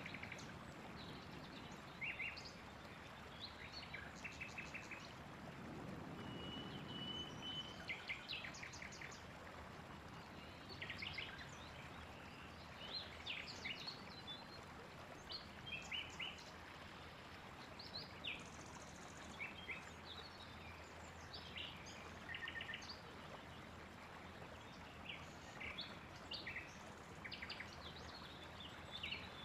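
Several songbirds calling and singing: short chirps and quick repeated-note trills, scattered and overlapping, with one longer steady whistle about seven seconds in, all faint over a steady background hiss.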